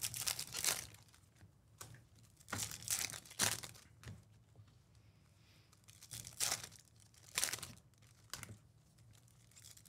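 Foil trading-card pack wrappers crinkling and tearing as Topps Chrome packs are ripped open by hand. The noise comes in several short bursts with quiet pauses between.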